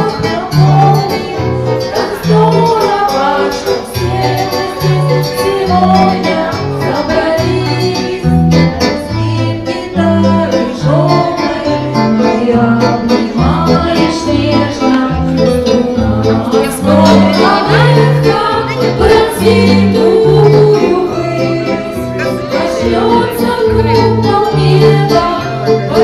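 Karaoke: a backing track with a bass line that bounces between two low notes, and a voice singing along through a microphone.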